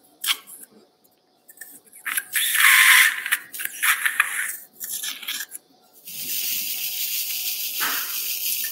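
Metal surgical instruments clicking and clinking against each other, with stretches of steady hiss; the longer hiss starts about six seconds in and holds steady.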